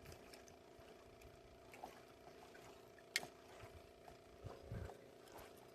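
Faint steady hum of a small battery-powered minnow-bucket aerator, with a few light clicks, one sharper click about three seconds in.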